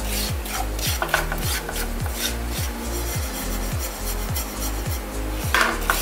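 Silicone spatula scraping and stirring dry seasoned salt (salt with pepper and five-spice) around a hot nonstick frying pan with the heat off: an irregular gritty rasping of the grains against the pan. Background music with a steady beat of about three thumps a second plays underneath.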